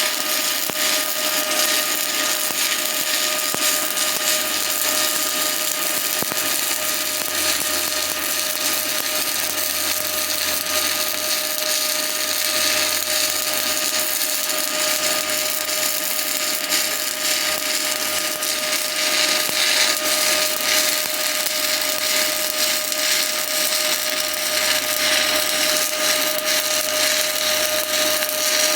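Stick-welding arc burning a 7018 rod in a continuous pass over a crack in a steel target plate: a steady, even crackling hiss with a thin steady hum underneath.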